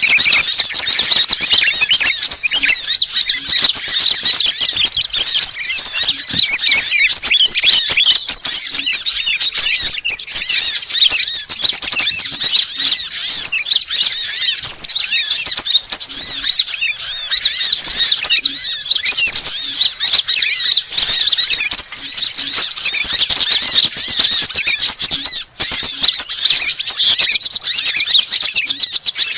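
Loud, dense chattering of many overlapping high, fast chirps and squeaks from small songbirds, layered into a bird-trapping lure call meant to draw in wild birds. There is a brief break about 25 seconds in.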